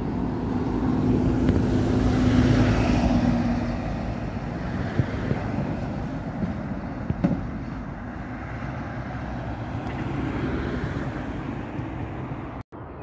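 A coach driving past on the road, its diesel engine and tyres growing louder to a peak about two seconds in and then fading away. A car passes closer by afterwards, and road noise goes on.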